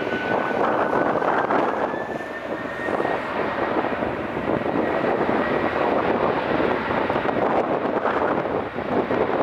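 Boeing 767-300 freighter's twin General Electric CF6-80C2 turbofan engines running at high power on the takeoff roll. It is a loud, steady jet noise with a thin high whine that rises a little in pitch about two seconds in and then holds.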